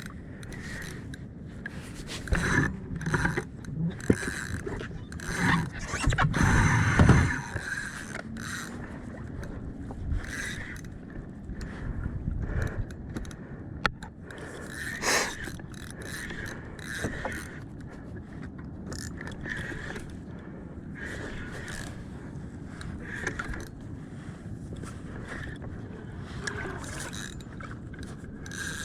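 Fishing reel being wound in irregular bursts as a fish is brought up beside a kayak, over a steady wash of water and wind noise.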